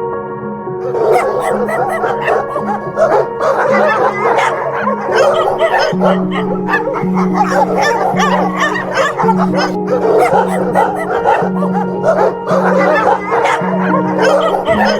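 Dogs yipping and whimpering, many high wavering calls overlapping, over background music with long held notes.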